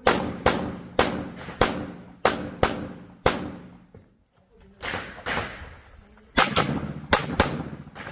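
Handgun shots fired rapidly, mostly in quick pairs, each with a short echo. There is a pause of about a second midway through, then the shooting resumes in fast strings.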